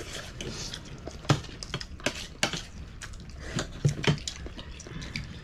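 Spoon and fork clinking and scraping on plates during a meal: a scattered run of light clicks and knocks, with eating sounds.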